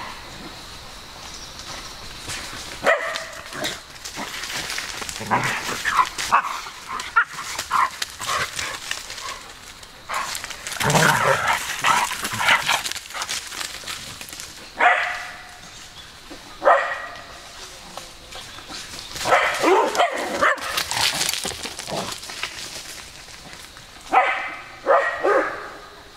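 Dogs barking and yipping in play: spaced single barks, then a quick run of three barks near the end.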